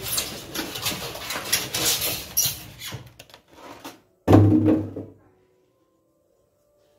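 Cardboard carton flaps and packing being handled by hand: scratchy rustling and scraping for about three and a half seconds, then a single loud low thump a little after four seconds in, followed by near silence.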